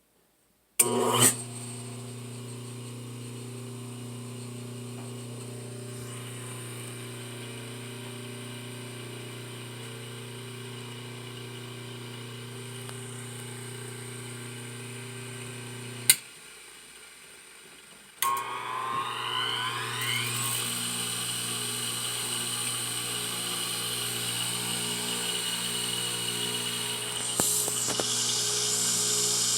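Bench lathe's two-speed AC induction motor: a click about a second in, then a steady electrical hum with overtones. Near the middle another click and the hum drops away; a couple of seconds later the motor starts again with a rising whine as it winds up, settling into a louder steady run, with one more click near the end.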